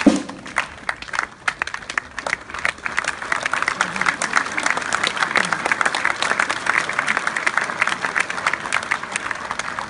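Crowd of spectators applauding, the clapping swelling over the first couple of seconds and thinning a little near the end.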